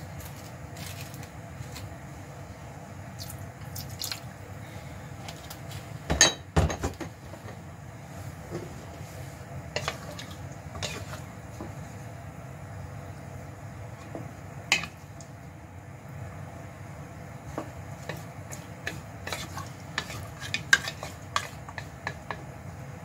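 Wooden spatula stirring beef stew in a nonstick pot, knocking and scraping against the pot in scattered clicks and knocks, the loudest a pair about six seconds in and a cluster near the end. A steady low hum runs underneath.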